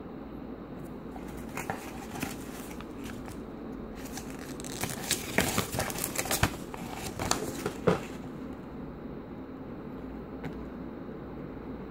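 Paper rustling and crinkling as a folded printed instruction leaflet is handled and opened out: a few scattered crackles, then a dense run of louder crinkles in the middle, over a steady low room hum.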